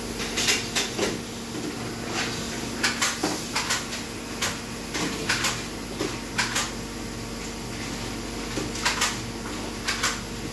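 Steelco VS6/2 steam sterilizer running, a steady hum under irregular metallic clicks and knocks, in loose clusters of two or three, with a quieter spell about two-thirds of the way in.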